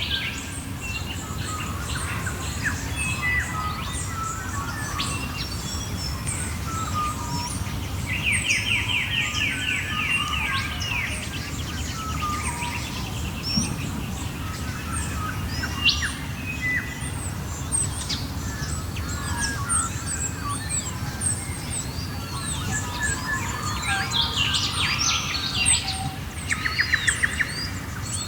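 Dawn chorus of many wild Australian birds singing at once: overlapping chirps, arching whistled notes and rapid trills, over a low steady rumble.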